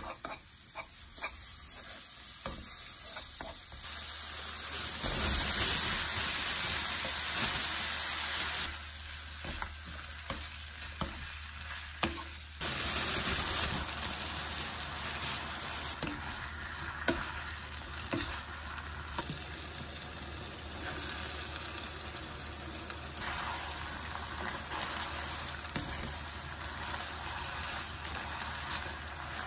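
Minced garlic, then thin-sliced beef brisket and bean sprouts, sizzling in oil in a nonstick wok while a spatula stirs and scrapes the pan. The frying gets louder about four seconds in and again about twelve seconds in.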